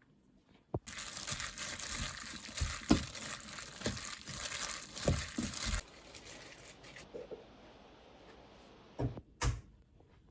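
Crinkling, rustling handling noise for about five seconds, with several soft knocks in it, followed by fainter rustling and two sharp thuds near the end.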